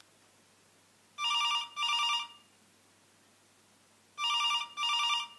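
Telephone ringing in a double-ring pattern: two pairs of short electronic rings, each pair about a second long, three seconds apart.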